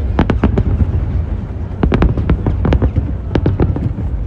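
Fireworks going off in three quick volleys of sharp pops and crackles, over a steady low rumble.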